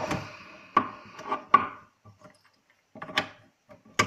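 Black plastic tripod head and a mounting platform being handled and fitted together: a few sharp plastic clicks and knocks with rubbing and scraping between them.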